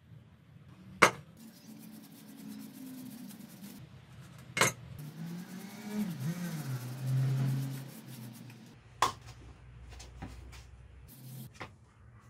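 Motorcycle tire-change work on a hand tire changer: three sharp metal clanks, with rubber rubbing and squeaking against the wheel rim in between and a drawn-out squeak a little past the middle.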